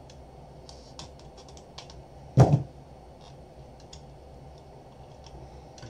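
Light scattered clicks and ticks of hand tools working on a power-supply circuit board, picking away hot glue. About two and a half seconds in comes one louder knock, as a pair of flush cutters is set down on the silicone work mat.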